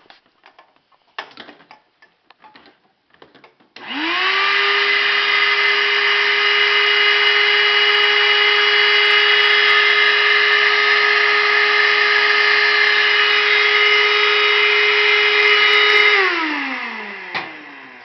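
Shop vacuum switched on about four seconds in: its motor whines up to speed, runs loud and steady for about twelve seconds while it sucks up metal chips from the mill table, then is switched off and winds down with a falling whine. A few light knocks come before it starts.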